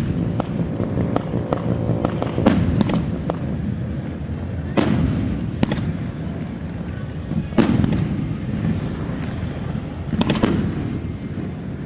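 Aerial fireworks bursting in a New Year's display: five loud booms about every two and a half seconds, with smaller pops and crackles between them over a steady low rumble.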